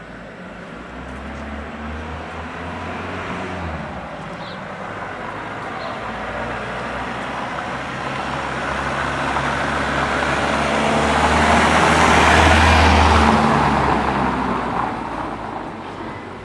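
A car driving toward the microphone and passing close by. Its engine hum and tyre noise grow steadily louder, peak about twelve seconds in, then fade as it goes away.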